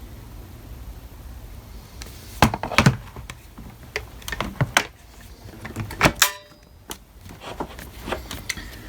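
Plastic parts of a Dirt Devil Featherlite upright vacuum being fitted back together by hand: a string of sharp clicks and knocks in clusters, starting about two and a half seconds in.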